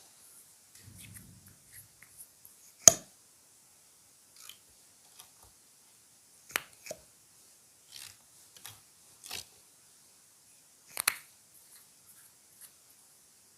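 Clear slime being pressed and worked by hand, giving sharp irregular clicking pops, about a dozen, the loudest about three seconds in and again near eleven seconds.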